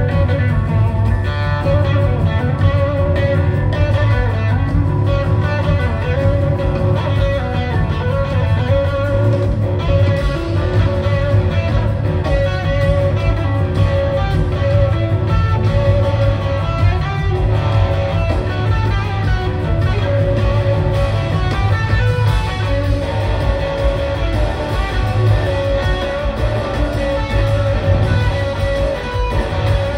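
Live rock band playing an instrumental passage, electric guitar to the fore over bass and drums, with sustained, wavering lead notes.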